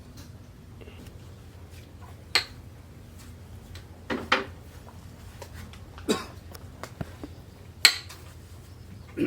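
A handful of sharp metal clinks and knocks, irregular and about one to two seconds apart, over a steady low hum.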